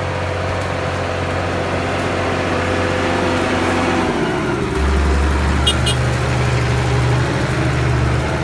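Farm tractor engine running steadily, heard from on the tractor; about four seconds in its note changes to a deeper, stronger hum. Two short sharp clicks come just before six seconds.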